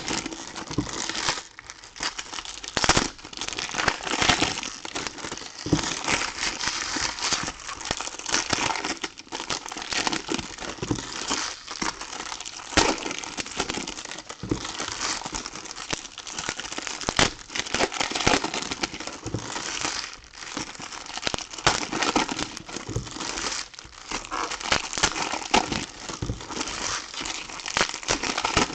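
Foil trading-card pack wrappers being torn open and crumpled by hand: a dense, irregular crinkling and crackling that runs on with many quick sharp crackles.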